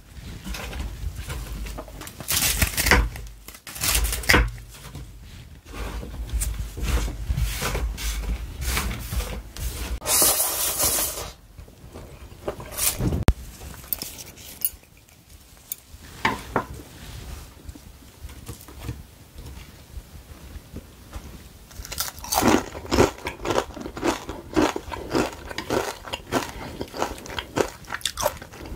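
Close-miked crisp battered fried peppers being cut with scissors and handled, then bitten and chewed, with a dense run of crunches near the end.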